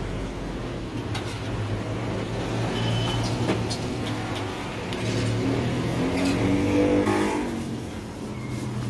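A motor vehicle's engine running over a steady low hum, revving up over a couple of seconds and then dropping back, with a few light metal clinks of a spoon against steel trays.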